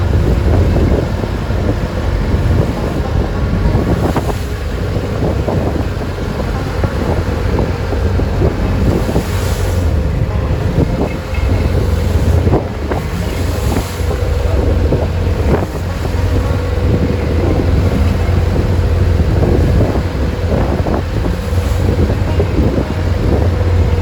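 A traditional wooden passenger boat's engine running steadily at sea, with strong wind buffeting the microphone and waves splashing against the hull.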